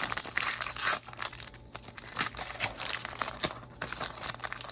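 Foil Pokémon booster pack wrapper crinkling as it is torn open, loudest in the first second, then lighter scattered crinkles.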